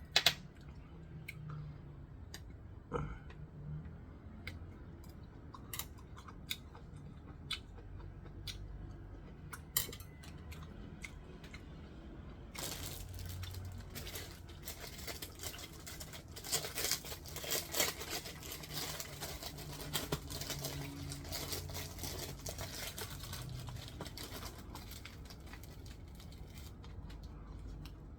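Close handling noise: scattered sharp clicks and taps, then from about twelve seconds in a continuous crinkling and tearing.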